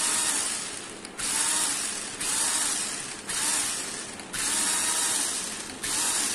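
Electric drive motors and gearboxes of a 4×4 RC rock-crawler toy car whirring as all four wheels spin in the air. It comes in about six throttle bursts of roughly a second each, the whine rising and falling in pitch within each burst.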